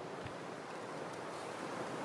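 Steady blizzard wind rushing over the microphone.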